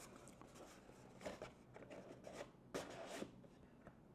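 Faint handling noise: a few soft rustles and light taps as small blind-box packaging and a toy figure are handled, over a low steady room hum.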